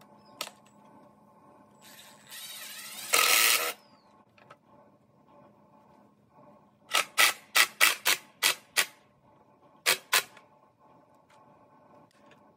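Cordless driver run in short trigger bursts, driving screws into lumber boards: a whir that builds into one brief loud run, then a quick string of about eight short bursts and two more soon after.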